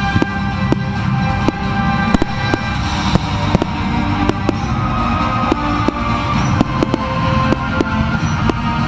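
Aerial fireworks shells bursting, a rapid, irregular string of sharp bangs going off throughout, with music playing underneath.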